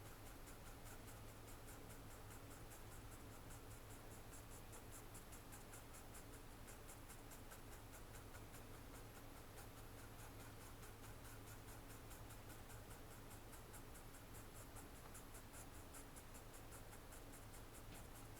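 Faint pencil scratching on drawing paper: quick, regular strokes several times a second over a low steady hum.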